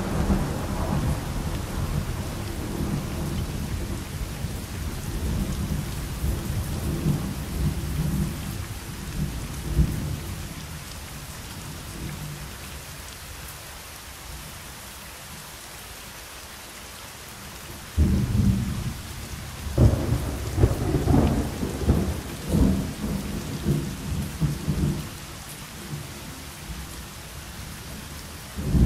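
Thunderstorm: rolling thunder over a steady hiss of rain. A rumble fades away over the first ten seconds or so, then sudden claps of thunder about 18 and 20 seconds in roll on for several seconds, and another breaks right at the end.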